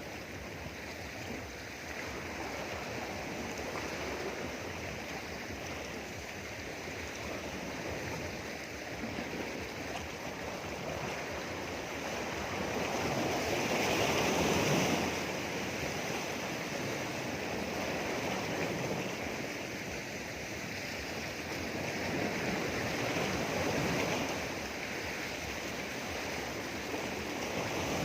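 Sea waves washing against rocks as a continuous rushing noise, with a larger wave surging in about halfway through and another a little later.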